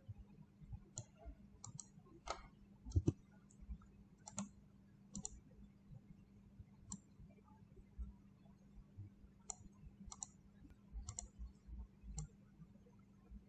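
Computer mouse clicking: faint, scattered single clicks and quick pairs at irregular intervals.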